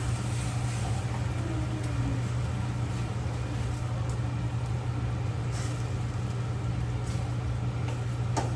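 Steady low mechanical hum, like a motor or fan running, with a few faint light clicks.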